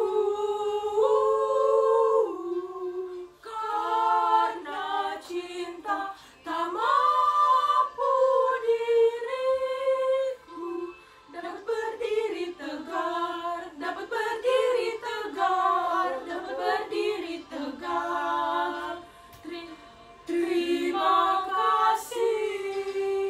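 Three girls singing a song together unaccompanied, several voices at once, with short breaks between phrases.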